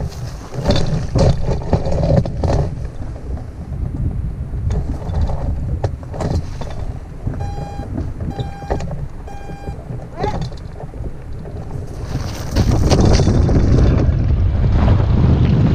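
Wind buffeting the microphone of a camera mounted on a hang glider, with scattered knocks and three short, evenly spaced electronic beeps about halfway through. The wind rush gets louder about three-quarters of the way in as the glider launches off the slope.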